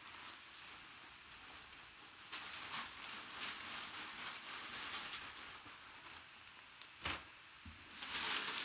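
Rustling and crinkling of a plastic bag and crumpled brown packing paper being handled in a cardboard box, with a short knock about seven seconds in and louder rustling near the end.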